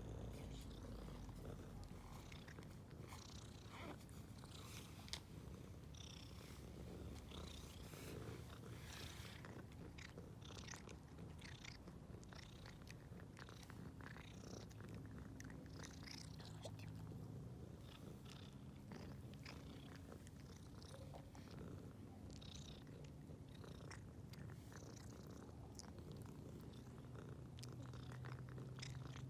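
Cat purring, low and steady, a contented purr, with faint scattered clicks over it.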